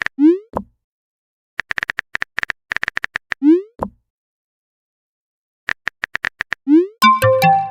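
Phone-keyboard typing sound effects, three quick runs of sharp taps, each followed by a short rising 'bloop' of a message being sent. Near the end a brief electronic notification chime of several tones sounds.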